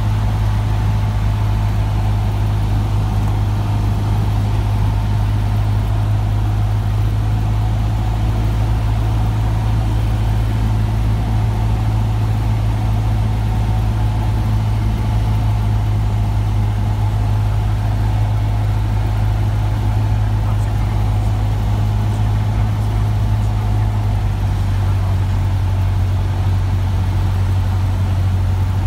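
Cessna 150's four-cylinder Continental O-200 engine and propeller droning steadily, heard inside the cabin on final approach. The engine note drops slightly lower late on.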